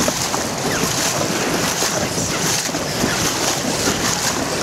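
Wind rushing across the microphone over choppy water, with waves lapping.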